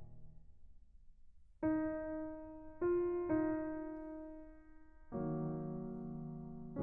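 Slow, sparse piano music: single notes struck about a second and a half, three and three and a half seconds in, then a lower chord about five seconds in, each left to ring and fade.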